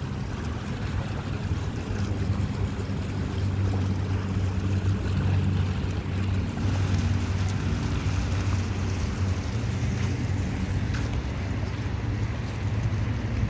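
Water splashing steadily from the bubbler jets of a small decorative fountain pool, over a steady low rumble.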